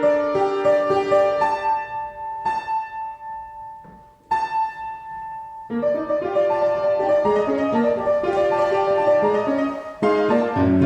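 Solo piano playing. Two sparse chords are struck and left to ring about two and a half and four seconds in. Busier playing resumes about six seconds in.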